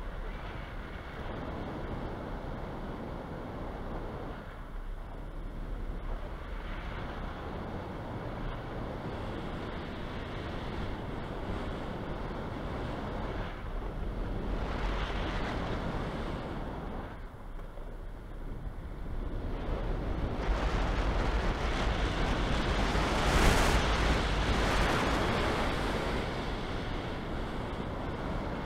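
Airflow buffeting a wing-mounted camera's microphone on a hang glider in flight: a steady rushing noise that swells louder about two-thirds of the way through and then eases.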